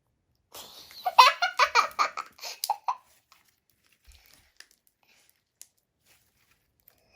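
A child laughing: a burst of rapid giggles lasting about two and a half seconds, followed by a few faint clicks.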